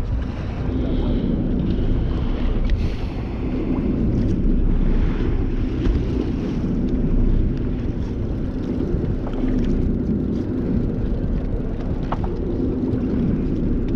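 Steady low rumble of a fishing boat's engine, with wind buffeting the microphone.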